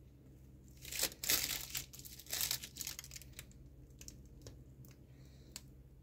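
Plastic piping bag crinkling as it is squeezed to pipe cream, a cluster of rustles lasting about two seconds, followed by a few light clicks and smaller rustles.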